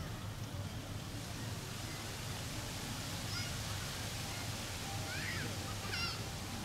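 Steady low outdoor rumble with a few brief high chirping calls: one about three seconds in, then two close together near the end, the last with several stacked pitches.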